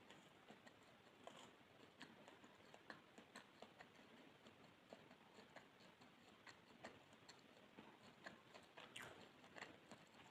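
Faint close-miked chewing of soft pandan sponge cake: small irregular wet mouth clicks and smacks, a few a second, over a low hiss.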